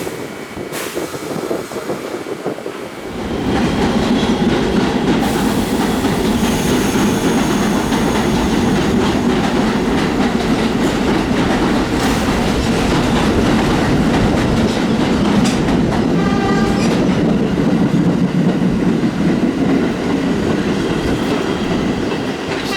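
New York City Subway shuttle train running past on the track, its wheels rumbling and clacking over the rails. The running noise rises sharply about three seconds in and stays loud, with brief high tones near the end.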